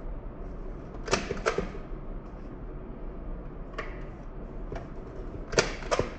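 Sharp plastic clicks in close pairs, about a second in and again near the end, with a few fainter clicks between: security tags being snapped onto shoes.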